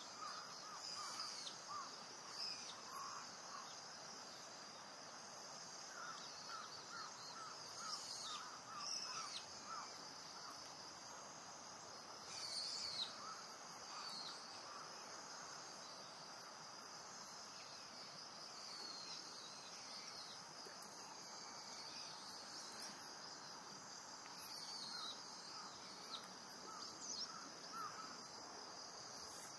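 Faint outdoor ambience of a steady, high-pitched insect chorus, with scattered short bird calls that drop in pitch and runs of quick chirps every few seconds.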